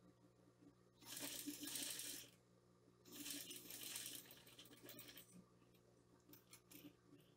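Domestic sewing machine stitching fabric in two short runs of about a second each, a second apart, with faint clicks of handling afterwards.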